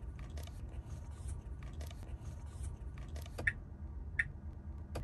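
Tesla Model 3 turn-signal ticking sets in about three and a half seconds in, short ticks roughly every 0.7 s, over a faint low hum in the parked car's cabin. Before the ticking, only faint scattered clicks and rustling.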